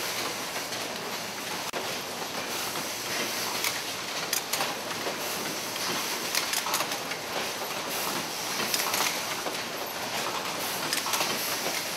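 Automatic disposable-needle assembly machine running: a steady mechanical clatter of many quick, irregular clicks over a high hiss.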